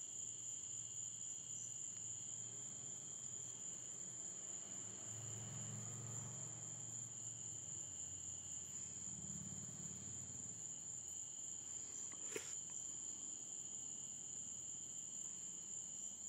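Night-time chorus of crickets: a steady high-pitched trill with a lower trill that starts and stops every second or two. A single sharp click about twelve seconds in.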